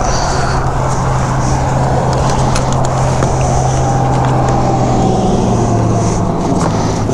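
Honda Africa Twin's parallel-twin engine running at low speed under steady road and wind noise, its note dropping a little about five seconds in as the bike slows on the road shoulder.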